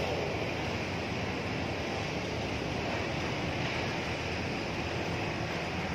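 Steady rushing noise of river water flowing past a concrete sluice wall, even and unbroken.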